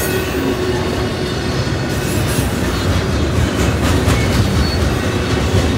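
Double-stack intermodal container train's well cars rolling past: a steady, loud noise of steel wheels running on the rails.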